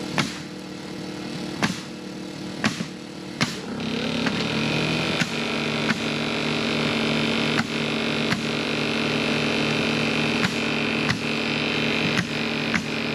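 A small engine running steadily, speeding up with a rising pitch about four seconds in and then holding at the higher speed. Over it come sharp knocks roughly once a second, the strikes of nailing during wall framing.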